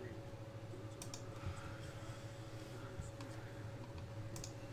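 A few scattered computer keyboard and mouse clicks over a faint steady hum.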